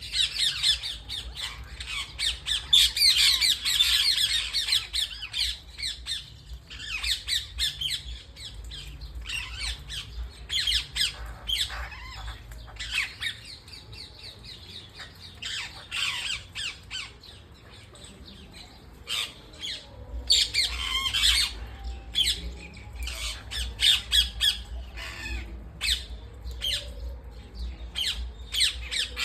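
Pet parrots squawking and chattering in a busy run of short, overlapping calls, densest near the start and again about two-thirds of the way through.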